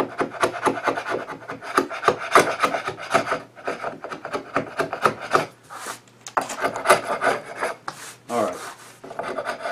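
A broad steel chisel held flat, scraping a thin film of dried wood glue off a hardwood workbench top in rapid, repeated strokes, with short pauses about six and eight seconds in.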